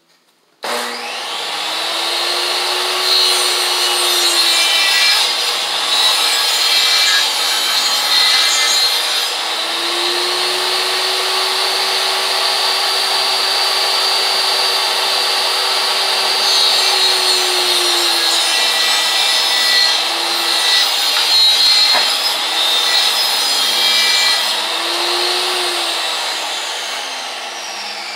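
Power saw, most likely a portable jobsite table saw, starting up about a second in and cutting wood, the motor's pitch sagging and recovering several times as the blade is loaded. Near the end it starts to wind down.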